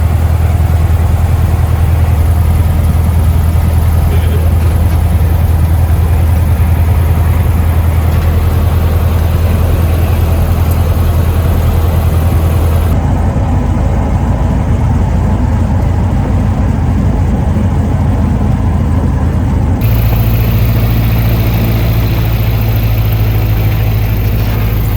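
A Cessna 150's four-cylinder piston engine and propeller running steadily, heard from inside the cockpit as a loud low drone. The sound changes abruptly twice, and after the second change the drone settles slightly higher.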